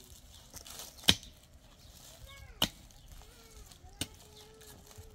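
A pickaxe striking hard, stony soil: three sharp chops about a second and a half apart, the first the loudest.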